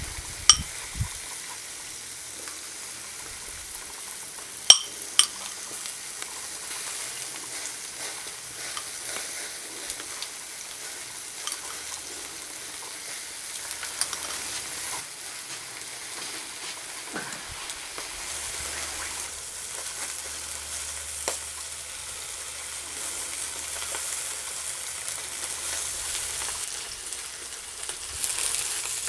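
Food sizzling steadily on a charcoal grill, a continuous high hiss. A few sharp clicks come in the first five seconds.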